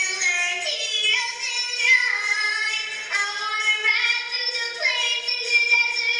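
A young girl singing in a ventriloquist act with her yodeling puppet, held high notes that break and slide down in pitch every second or so. The recording sounds thin, with no bass.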